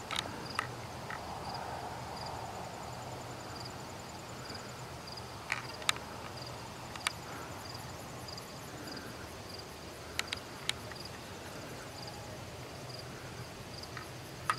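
Evening field ambience: an insect chirping steadily in a high, evenly spaced pulse, with a few sharp clicks scattered through.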